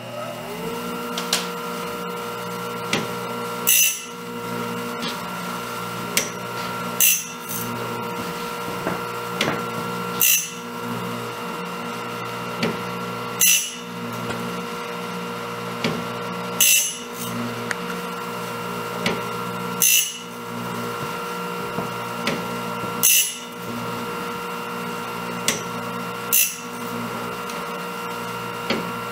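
Homemade bandsaw blade sharpener running: its grinding-stone motor spins up about half a second in and then runs with a steady whine, while the cam-driven stone grinds a blade tooth about every three seconds with a short, sharp rasp, and lighter clicks between strokes.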